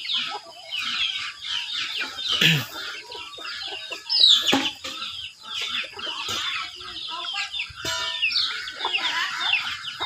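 A flock of chickens feeding: many chicks peeping constantly in short, high, falling chirps, with hens clucking among them. A couple of louder calls stand out, about two and a half and four seconds in.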